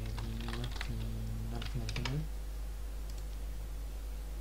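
Typing on a computer keyboard: two quick runs of key clicks in the first two seconds, with a low held hum from a person's voice under them that stops at about two seconds.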